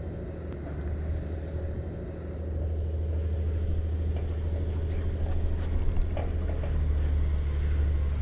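A steady low rumble, with a few light knocks about five to six seconds in.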